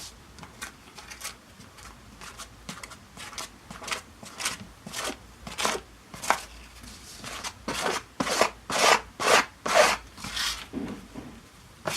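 The edge of a piece of card scraping glue across a surface to spread it evenly, in short repeated strokes. The strokes are faint at first and get stronger and quicker from about four seconds in, roughly one to two a second.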